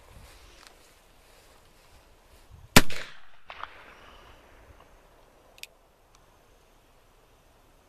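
A single shot from a .44-calibre Pietta replica Colt 1851 Navy Sheriff-model black-powder cap-and-ball revolver, about three seconds in, echoing briefly. A sharp click follows a few seconds later.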